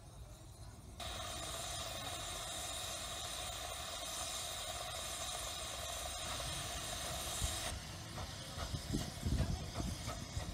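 Miniature steam locomotive letting off a steady hiss of steam that starts suddenly and cuts off after about six seconds, followed by irregular low knocks and clicks as it moves along the track.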